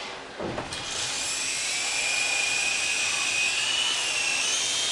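Small electric motors of a Syma S109G toy RC helicopter whining as its rotors spin up and run, starting about a second in, with a steady high pitch that rises slightly near the end.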